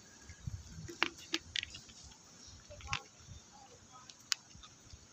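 A few scattered sharp clicks and taps over a faint background, the sharpest about a second in and another just past four seconds.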